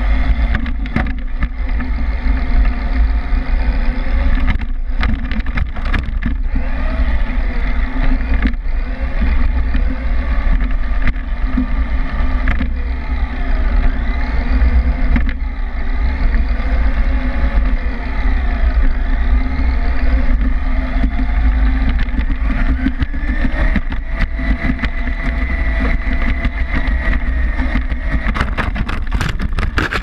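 Onboard sound of a remote-control racing car driving on a paved road: a loud, steady low rumble of road vibration and wind on the body-mounted camera, with the car's motor whine rising and falling as it speeds up and slows. Near the end, a cluster of sharp knocks as the car crashes and ends up on its roof.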